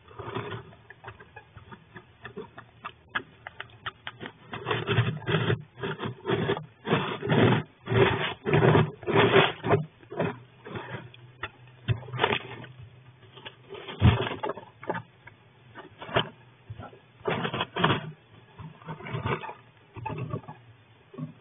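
A flying squirrel scrabbling inside a wooden nest box: irregular bursts of scratching and rustling as it moves over the wood shavings and claws at the wooden walls.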